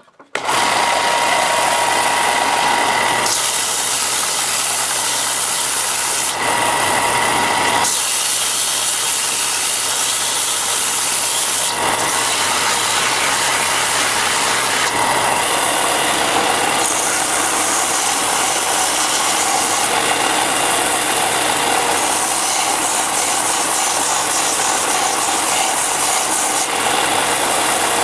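An electric power tool grinding or sanding the steel of a cleaver blade. It starts abruptly about half a second in and runs steadily at a high level, its hiss shifting in tone several times as the tool works the metal, with a motor whine heard in the first few seconds and again around six to eight seconds in.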